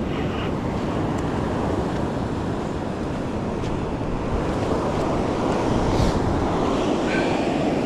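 Ocean surf washing up the beach, with wind buffeting the microphone: a steady rushing noise.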